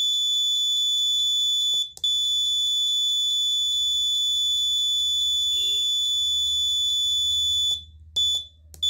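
Piezo alarm buzzer on an Arduino school-bell board sounding one steady, high-pitched electronic tone. It cuts out briefly about two seconds in and twice near the end.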